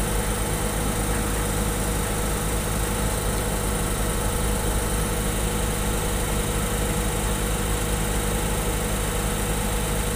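Heavy construction machine's engine idling steadily, a constant low hum with no revving.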